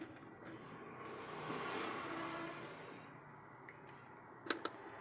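A vehicle passing by, its noise swelling up and fading away over about two seconds, followed near the end by two small clicks.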